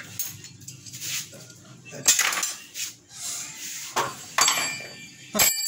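A small metal wrench dropped onto a drum-tight screen-printing mesh, bouncing on it with a series of sharp metallic clinks and taps, the strongest about two seconds in and near the end, where it rings briefly. The bounce shows how tight the mesh is stretched.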